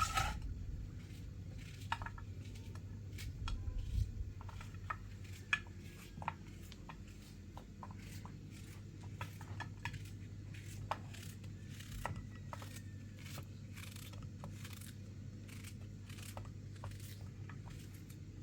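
Irregular small clicks and taps of objects being handled, over a steady low hum.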